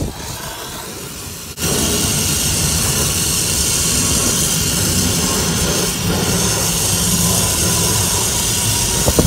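Brazing torch flame burning steadily on the copper joint of a new filter drier as it is brazed in; the loud, even rushing sound starts suddenly about a second and a half in, after a softer hiss.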